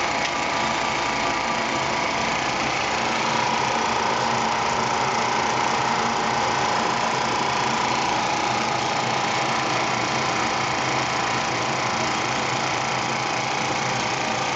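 RCA 16mm film projector in a Mills Panoram running steadily with freshly threaded film: a continuous mechanical whir with a low hum.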